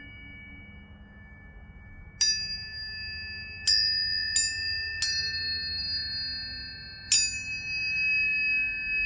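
Tuning forks struck one after another, five sharp taps, each leaving a steady high ringing tone that lingers and overlaps the others. Tones from earlier strikes are still fading at the start.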